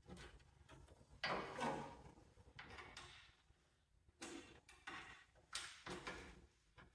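Sheet-metal panel on a Cub Cadet garden tractor being slid and worked into place by hand: a series of about five short scraping, sliding sounds, the loudest about a second and a half in.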